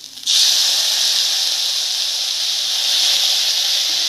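Soy sauce hitting a hot pan of frying prawns, onion and ground spices, setting off a loud sizzle that starts suddenly a moment in and holds steady.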